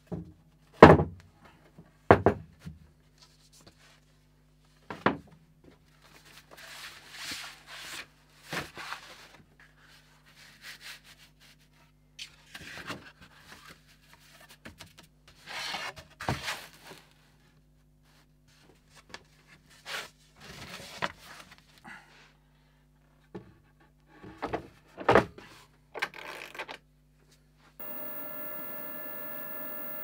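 Thin wooden boards and sheets handled on a wooden workbench: several sharp knocks as pieces are set down, with sliding and rubbing as they are shuffled against each other. Near the end a steady machine hum starts.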